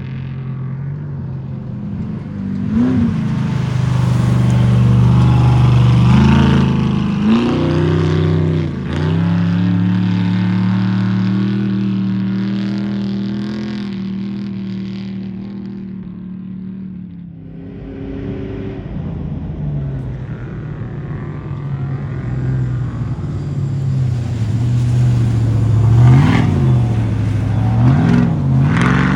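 Off-road race vehicle engines running hard and revving, the pitch swooping up and down with repeated throttle changes. The sound drops away about seventeen seconds in, then builds again, with two sharp revs near the end.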